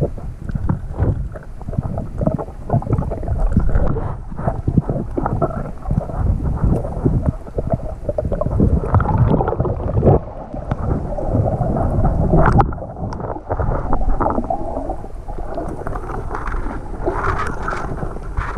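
Muffled underwater noise picked up by a camera in a waterproof housing: water swishing and bubbling past it, with frequent knocks and bumps as the camera is moved around and handled.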